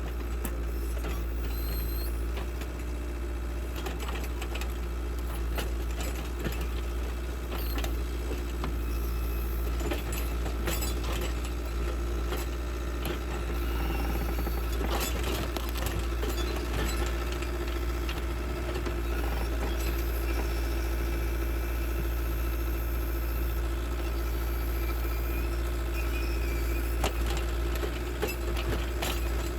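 Caterpillar 236B skid steer's diesel engine running steadily under load, powering the hydraulics of a New Holland 758C backhoe attachment as it lifts a large stump out of the ground. Scattered clanks and knocks come through over the engine drone.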